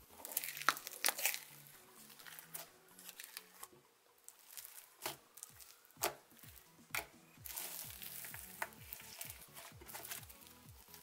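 Thick, icy cloud cream slime crackling and popping in dense little bursts as fingers poke, stretch and squish it, under quiet background music with a steady beat.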